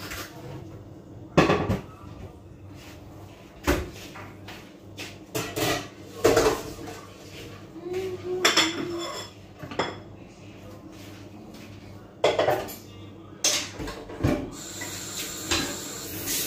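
Metal pots, pans and lids clattering as they are lifted off a gas stove and set down: a string of separate clanks and knocks, one ringing briefly about halfway through.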